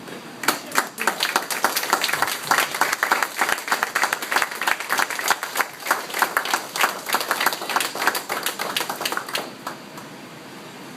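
Audience applauding, a room of people clapping for about nine seconds before it dies away.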